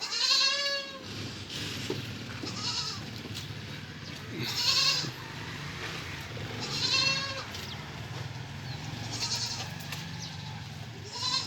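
Goats bleating, about six wavering calls a couple of seconds apart, the loudest near the start and around five seconds in, over a steady low hum.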